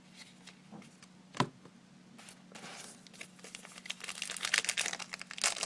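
Plastic foil wrapper of a Gypsy Queen baseball card pack crinkling as it is handled and opened, the crackle growing dense from about four seconds in. A single light tap about a second and a half in.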